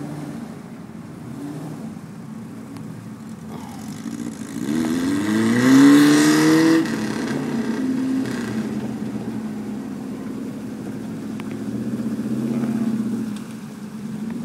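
An off-road vehicle's engine working in deep mud, revving hard with a steeply rising pitch about five seconds in, joined at its loudest by a rushing hiss of spinning wheels throwing mud; the engine then settles back to a lower, steadier run.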